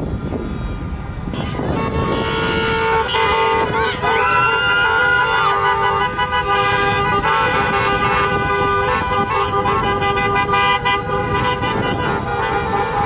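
Many car horns honking at once, long overlapping blasts that keep going, over the low rumble of idling and slow-moving traffic.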